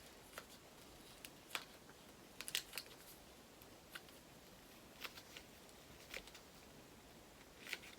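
Faint, scattered clicks and light taps of acrylic cards and their plastic packaging being handled, about ten in all, irregularly spaced, with a brief cluster a little past two seconds in.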